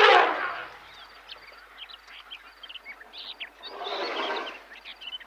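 Birds chirping and calling in the bush. A loud rushing noise swells and fades at the start, and a softer one rises and falls about four seconds in.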